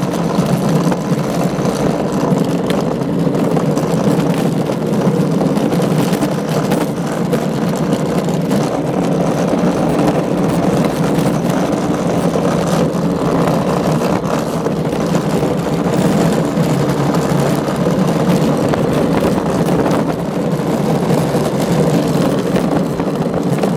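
Alpine slide cart rolling fast down a concrete track: a steady, loud rumble of its wheels on the concrete.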